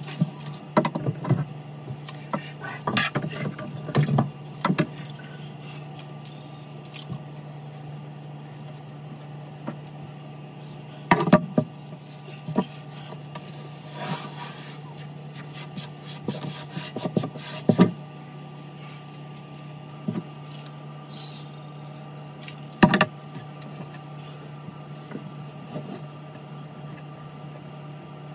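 Scattered knocks, clicks and rattles of hands and tools working inside a cabinet under a kitchen sink, over a steady low hum. The knocks come in clusters, thickest in the first few seconds and again around the middle.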